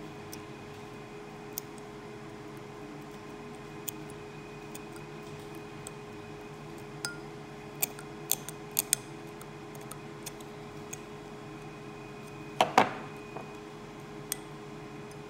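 Steel dental explorer tip probing a 3D-printed model tooth's simulated decay: scattered light clicks and scratches, several in quick succession midway, and a louder brief scrape near the end, over a steady background hum.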